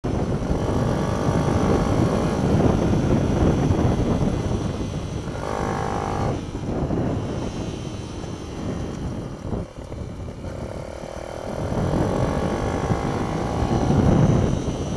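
Mini-bike engine running hard on track, its pitch rising and falling with the throttle: easing off around the middle, then revving up again near the end. Heavy wind rumble on the bike-mounted microphone runs under it.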